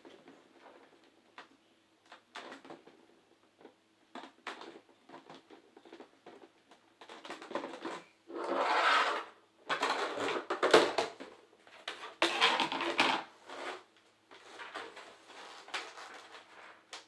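Hard plastic Beyblade stadium parts being handled and fitted together: scattered clicks and knocks, with louder stretches of rubbing and rustling in the second half.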